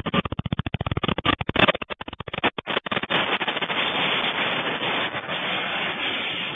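Rapid rattling and clattering of a restaurant's bottles and glassware shaken by an earthquake, with a few louder knocks, heard through a security camera's thin-sounding microphone. About three seconds in, the clatter blurs into a steady rush of noise.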